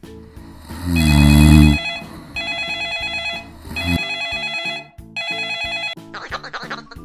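A cartoon snore about a second in, then a mobile phone ringtone ringing in three bursts of about a second each. Near the end a high, chattering, quacking voice starts.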